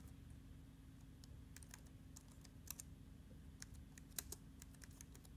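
Faint, irregular keystrokes on a computer keyboard as a short name is typed in.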